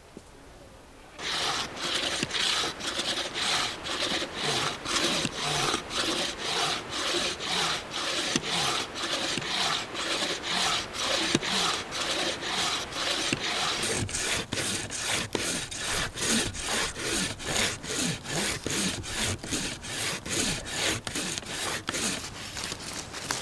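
Wooden frame saw cutting through a log by hand, a rasping stroke with each push and pull, about two to three strokes a second. It starts about a second in, and from about halfway the strokes sound deeper.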